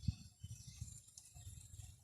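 Faint wind buffeting the microphone in irregular low rumbling gusts.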